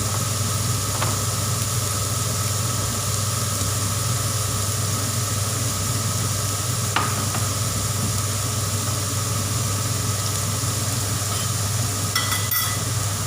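Chopped mixed vegetables sizzling and being stirred as they sauté in oil in a pan, over a steady low hum. A few small clicks of the utensil against the pan come near the end.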